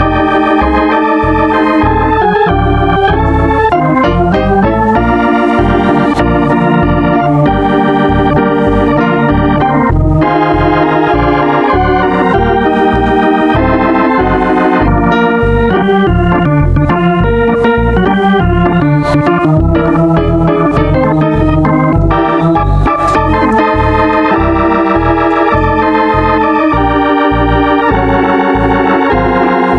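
Lively organ music: sustained chords and a running melody over a steady bass beat.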